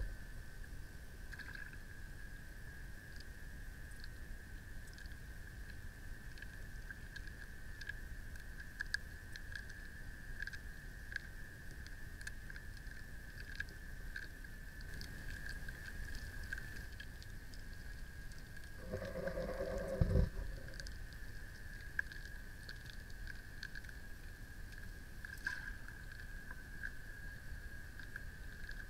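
Muffled underwater ambience picked up by a submerged camera: a constant high-pitched tone over a low rumble, with scattered faint clicks. About nineteen seconds in, a short humming sound with several pitches lasts about a second and a half.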